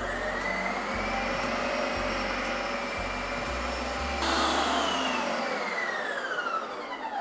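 Ninja CREAMi ice cream processor running its Lite Ice Cream program, its blade motor whining as it spins down through a frozen pint. The whine holds steady, jumps louder about four seconds in, then falls in pitch as the motor winds down near the end of the processing cycle.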